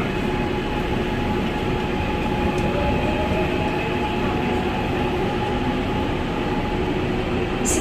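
Gwangju Metro Line 1 subway train running between stations, heard from inside the car: a steady rumble of wheels on the track with a few faint steady tones over it. A brief click comes near the end.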